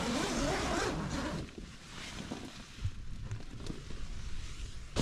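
A tent door zip pulled open in one long rasp lasting about a second and a half, followed by quieter rustling of the tent's nylon fabric.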